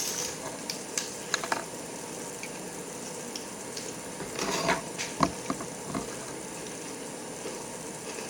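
Faint chewing of a cracker: a few scattered crunches and clicks, with a brief soft rustle about four and a half seconds in.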